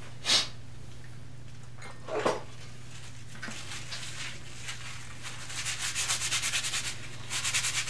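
Abrasive cleaning wipe scrubbing the wrinkle-painted metal case of a Dumore tool post grinder: a couple of brief handling swishes, then quick back-and-forth rubbing strokes from about five seconds in, over a steady low hum.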